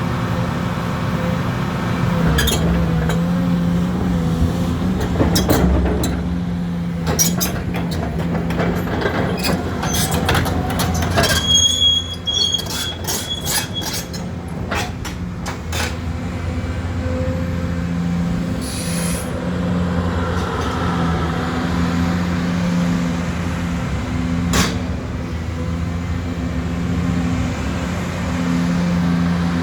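Hyundai Robex 500 crawler excavator's diesel engine running steadily, with a cluster of sharp metallic clanks and knocks through the middle and a brief high squeal among them.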